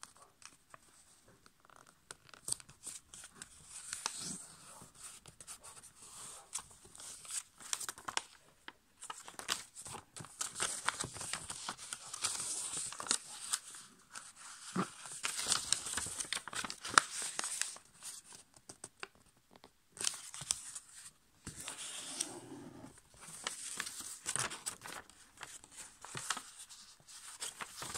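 A sheet of A5 copy paper being folded and creased by hand, crinkling and rustling with small crisp clicks as the folds are pressed. The sound comes in spurts with short pauses between them.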